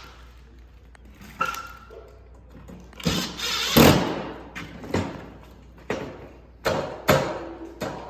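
A series of sharp knocks and clunks, about seven, the loudest a little before the middle, as parts of a Sticker Burr Roller are handled and fitted back together; a few of the knocks ring briefly.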